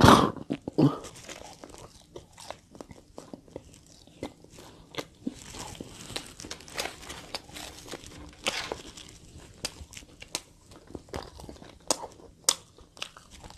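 A person eating close to the microphone, biting and chewing chicken drumstick and bread: a loud bite right at the start and another just under a second in, then scattered crunchy clicks and chewing sounds.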